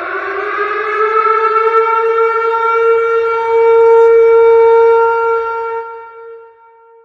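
Tornado warning siren wailing: the tone rises in pitch, settles into a steady wail that swells to its loudest about four seconds in, then fades away near the end.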